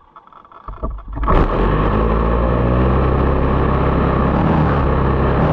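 An RC buggy's small two-stroke engine sputters, catches about a second in, and then idles steadily while the buggy stands still.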